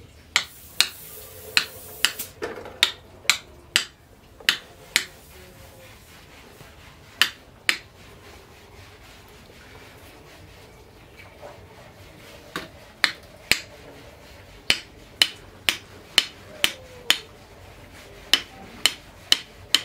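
A run of sharp, short clicks and taps, irregular and often about two a second, stopping for a few seconds twice. There is a brief high hiss just after the start.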